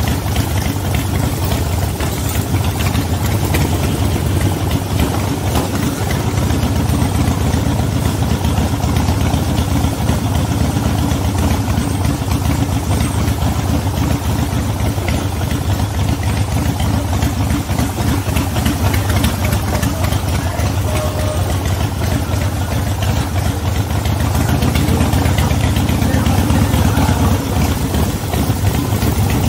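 V-twin cruiser motorcycle engine running steadily at low speed, a low pulsing exhaust note, a little louder near the end.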